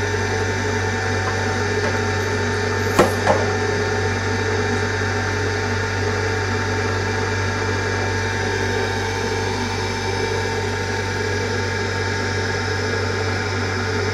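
Electric potter's wheel motor running with a steady hum. Two quick knocks come about three seconds in.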